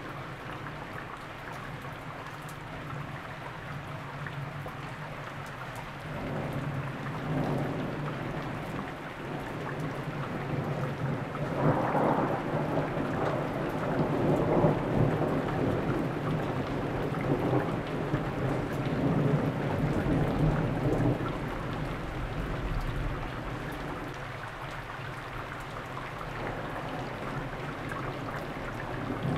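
Thunderstorm: steady rain with long rolling thunder that swells about six seconds in, then grows loudest for several seconds through the middle before slowly dying away.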